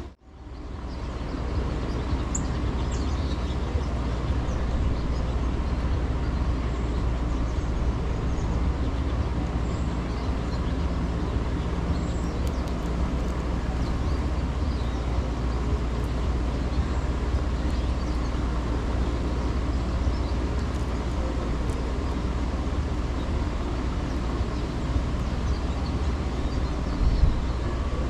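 Steady outdoor city ambience: a low rumble of wind and distant traffic, with a few faint bird chirps now and then. The sound drops out at the very start and fades back in over about a second.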